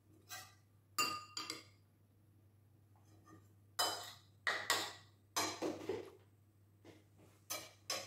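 Metal spoon and fork clinking and scraping against a ceramic plate while eating: irregular sharp clinks with a short ring after each, and a longer scrape about two thirds of the way through.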